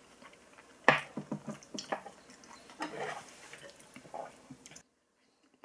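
Mealtime eating and drinking sounds: a sharp knock about a second in, then a string of gulps, slurps and small dish and utensil noises, cutting off suddenly near the end.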